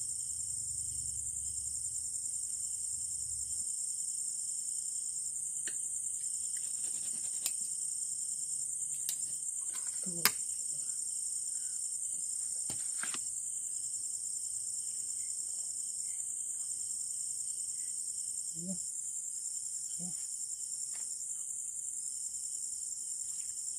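Dense chorus of night insects chirring: one high, unbroken trill, with a lower trill that switches on and off in stretches of about two seconds. A few light clicks and knocks from a knife on a steel plate, the sharpest about ten seconds in.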